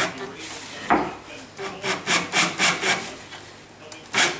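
Screw being driven into a pine board, its threads rasping and creaking against the wood in short strokes, about four a second in a run through the middle, with a louder stroke near the end.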